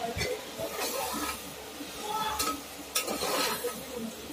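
Marinated mutton sizzling in hot oil in a pressure cooker while a metal ladle stirs it, scraping the pot, with a few sharp clinks of the ladle against the metal.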